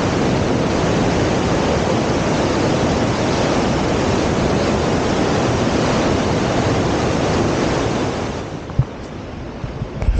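Steady roar of rushing water. It drops away about eight seconds in, and a couple of short knocks follow near the end.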